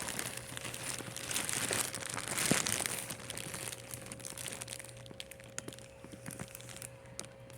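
Packaging crinkling and rustling as items are unwrapped and lifted out of a box, with many small crackles, busiest in the first few seconds and thinning out toward the end.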